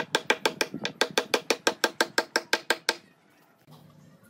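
Hammer driving a nail into a log with fast, even blows, about six a second, each strike ringing briefly. The blows stop about three seconds in.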